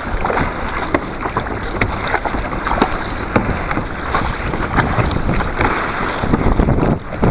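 Wind buffeting the microphone over water sloshing and splashing against a kayak in rough surf, with many short sharp splashes and knocks throughout.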